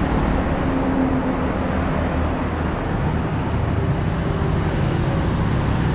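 Street traffic: a steady hum of passing motorbike and car engines, with low engine tones that shift as vehicles go by.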